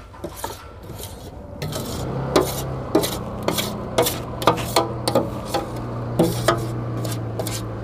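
Metal spoon scraping roasted gram flour off a steel plate into a kadai of sugar syrup: repeated rasping scrapes and clinks of metal on metal, several a second, with a low steady hum beneath from about two seconds in.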